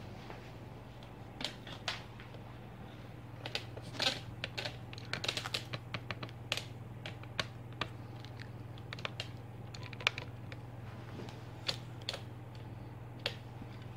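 Irregular light clicks and taps, thickest in the middle, over a steady low hum.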